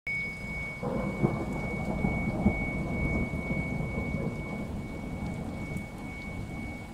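Thunderstorm-like rumbling and rain noise with a steady high-pitched tone running through it; two sharp cracks stand out about one and two and a half seconds in.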